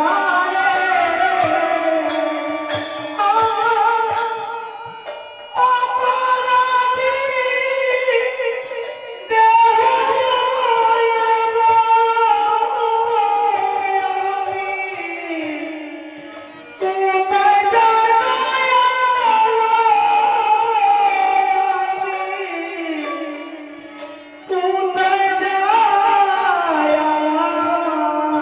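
Bengali devotional kirtan: a woman sings long, gliding held phrases into a microphone, with harmonium accompaniment and light drumming underneath. Each phrase fades and a new one comes in sharply, four times.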